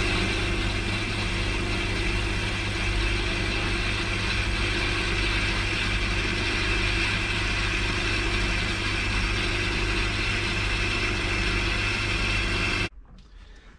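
Metal lathe running with a steel sprocket spinning in its four-jaw chuck, boring the sprocket's hole out to size for a bearing. A steady machine hum that cuts off suddenly about a second before the end.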